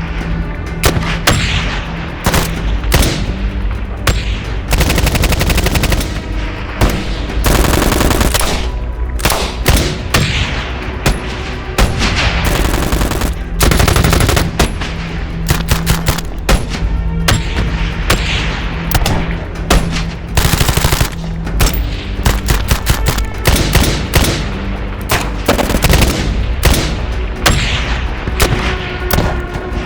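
A rapid montage of gunshots: single shots alternating with short bursts of automatic fire, one recording after another.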